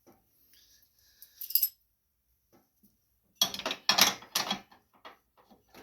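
Hand tools and metal parts clinking and clattering as a wrench and socket work on the mower's steering bolts. A few light clicks come first, then a quick burst of loud metal clatter about three and a half seconds in.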